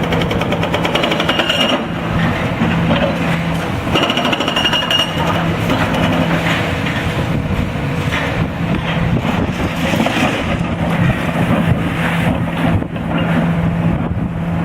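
Hydraulic breaker hammering and shattering reinforced concrete in a rapid, continuous pounding, with a low steady hum that drops out and comes back several times.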